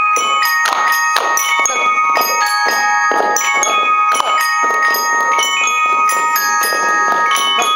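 Percussion ensemble of glockenspiels, bright metal bars struck with mallets and ringing out a quick repeating melody, over a steady pattern of short, dull hits.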